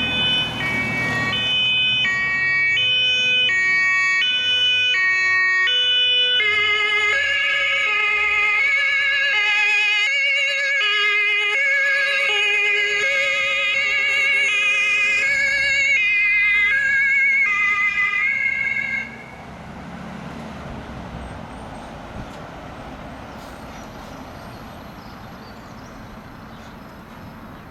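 German fire-service vehicles' two-tone sirens (Martinhorn) sounding as they pass, several sirens overlapping with their alternating high-low notes. About two-thirds through the sirens cut off, leaving quieter, steady road and engine noise.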